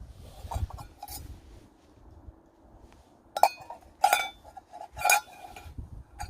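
Metal camp-cooking gear clinking: several sharp, ringing metal knocks, the loudest three about three and a half, four and five seconds in, over a low wind rumble.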